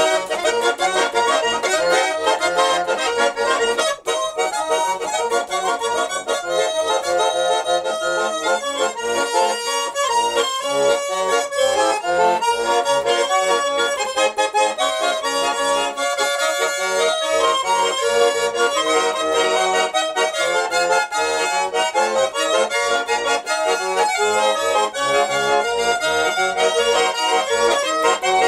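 A garmon (Russian button accordion) played continuously: a quick-moving melody over sustained reedy chords, without pauses.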